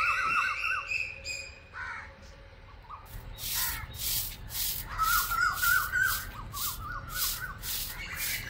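Birds calling with a repeated chirping phrase, and from about three seconds in a stick broom sweeping a bare earth yard, a dry swish about two strokes a second.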